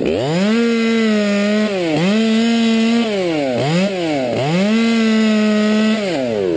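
Top-handle chainsaw running at full throttle, cutting into a Norway maple trunk. Its pitch drops and picks up again a few times as the throttle eases off, then winds down near the end.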